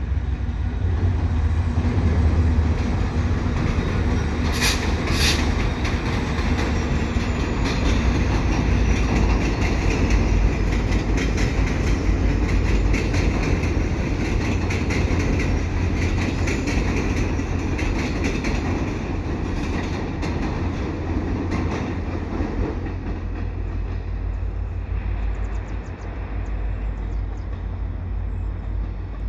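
Diesel-hauled passenger train of Via Rail Renaissance coaches passing over a railway bridge: a steady low rumble with wheels clicking over rail joints, and two sharp knocks about five seconds in. The sound eases off slightly near the end as the train moves away.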